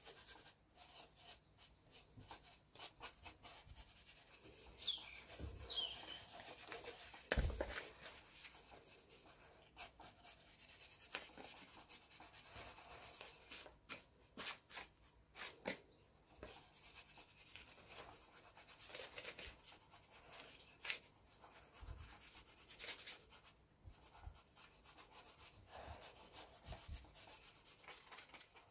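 A bristle brush is rubbed and swept over a gilded clock face, brushing off loose gold leaf flakes in irregular scratchy strokes. A bird chirps once about five seconds in.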